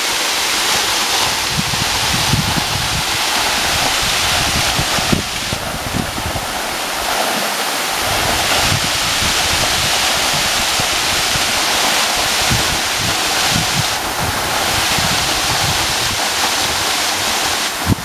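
A waterfall plunging down a rock face onto a shallow pool: a loud, steady rush of falling and splashing water, with irregular low buffeting on the microphone.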